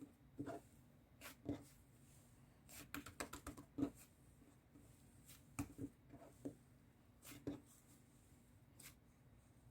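Faint, scattered handling sounds in a small room: short clicks and taps, with a quick run of them about three seconds in.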